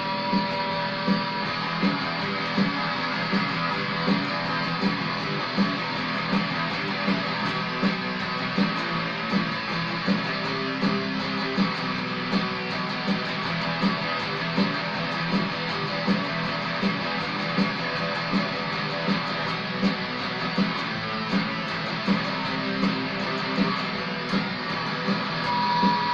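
Electric guitar, a Squier Stagemaster, playing in the key of E over a steady beat that falls about every three-quarters of a second.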